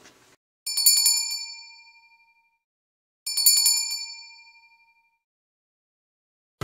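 A small bell rung twice, about two and a half seconds apart. Each ring is a quick rattle of strikes whose bright tones then ring out and fade.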